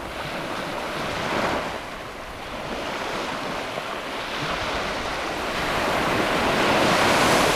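Ocean waves breaking on a beach: a steady wash of surf that swells and ebbs, with one small surge about a second and a half in and a bigger wave building to break near the end.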